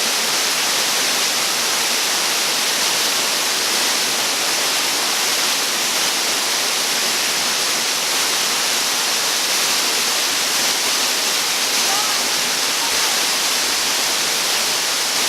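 Waterfall: loud, steady rushing of falling water, unchanging throughout.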